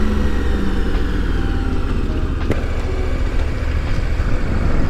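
Motorcycle cruising at highway speed: a steady engine drone under heavy wind rush on the microphone, with one sharp click about two and a half seconds in.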